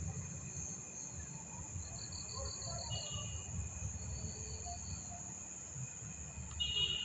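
Insects trilling in the background: steady high-pitched trills, joined by a short pulsed chirping about two seconds in and another trill starting near the end, over a low rumble.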